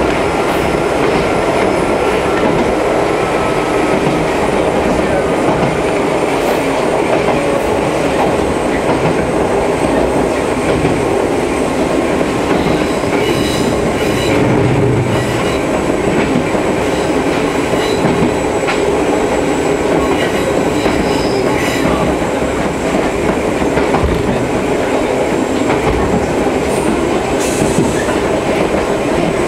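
Ichibata Electric Railway 2100-series electric train heard from inside the carriage while running: a steady rumble of wheels on the rails with faint high tones above it and scattered clicks from the track.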